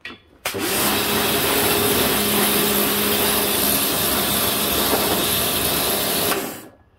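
Pressure washer spraying a jet of water onto a plastic tool case: a steady hiss of spray with a steady motor hum underneath. It starts about half a second in and stops near the end.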